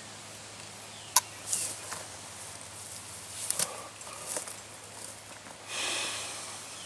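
Hands-on work at a barbed wire fence: a few sharp clicks among short rustles, with a longer hissing rustle near the end.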